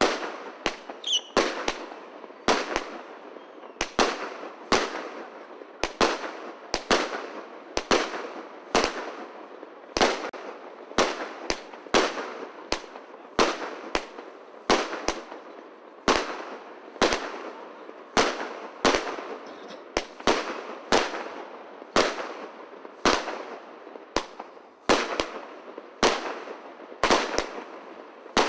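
Aerial fireworks going off shot after shot, a sharp bang a little more often than once a second, each dying away briefly before the next.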